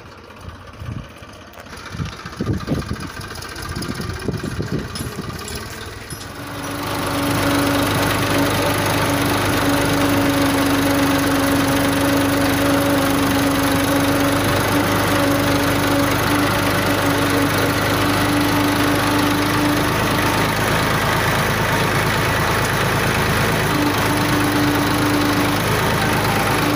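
Massey Ferguson 1035 DI tractor's three-cylinder diesel engine running. At first it is quieter and uneven. From about six seconds in it is loud and close, with a steady whine over the engine noise that drops out for a few seconds and comes back near the end.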